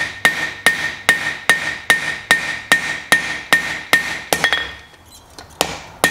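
Blacksmith's hammer striking a red-hot 3/4-inch round bar of 4140 steel on a Cliff Carroll anvil, flattening the sides of a hot-cut chisel blank. The blows come in a steady rhythm of about two and a half a second, each followed by a short ring from the anvil. The blows stop for about a second past the middle, then start again.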